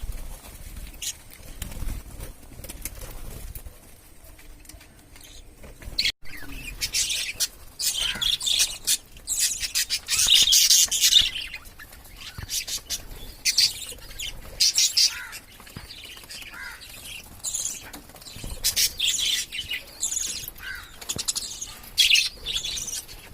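A group of pet budgerigars chirping in quick, repeated high-pitched bursts, with wing flapping. The chirping grows busier after about six seconds.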